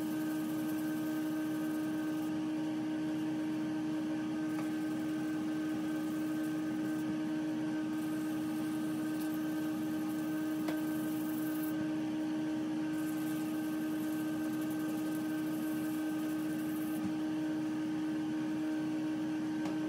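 A steady machine hum: one strong low-pitched tone with several fainter higher tones over a noisy floor, unchanging in level.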